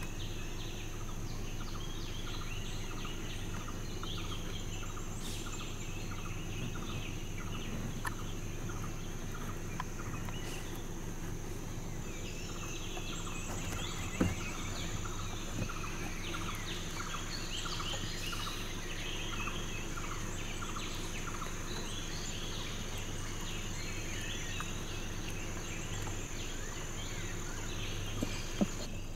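Tropical forest ambience: a steady high insect drone, an evenly repeated call about two to three times a second, and scattered bird chirps over a low steady hum, with a single sharp knock about halfway through.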